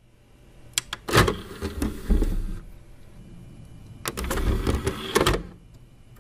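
Two bursts of mechanical clicking and whirring, the first about a second in and the second about four seconds in, each set off by sharp clicks.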